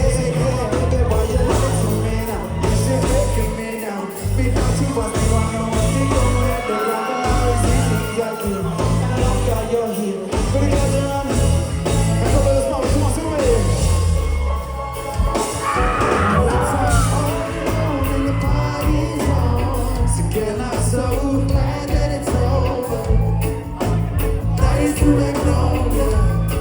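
A live reggae band playing with singing. The bass and kick drop out briefly several times in the first ten seconds, then come back in.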